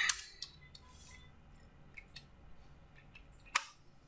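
Computer keyboard: a few isolated key presses with quiet gaps between them, the sharpest click a little after three and a half seconds.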